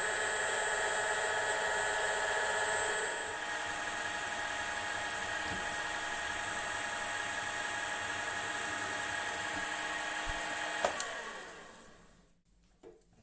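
Milling machine spindle running with a steady high-pitched whine while drilling M4 holes in steel. It gets quieter about three seconds in, then winds down and stops near the end.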